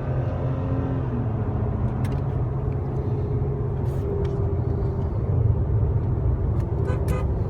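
Steady low rumble of road and engine noise heard from inside a car's cabin at highway speed, with a faint steady hum joining about halfway and a few brief clicks.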